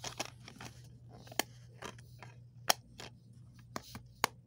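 Plastic DVD case handled and snapped shut: scattered sharp clicks and taps of the hard plastic, over a low steady hum.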